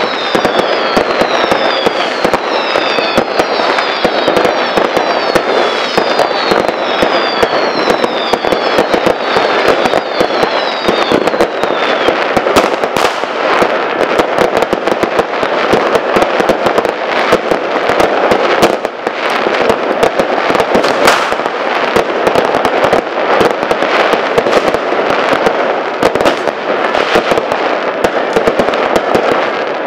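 New Year's Eve fireworks and firecrackers going off without pause: dense, overlapping bangs and crackling. For the first twelve seconds or so, a string of short falling whistles sounds over the bangs.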